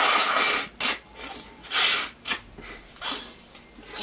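A person breathing out in several short, hard, noisy puffs without voice; the loudest is at the start and another comes about two seconds in.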